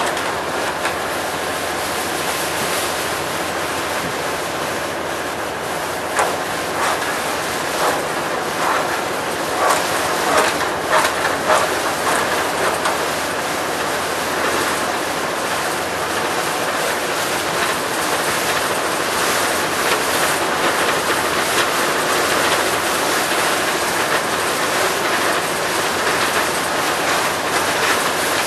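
Steady rushing of water churned by a tugboat's propeller wash, mixed with wind on the microphone, with a run of irregular splashes or knocks between about six and twelve seconds in.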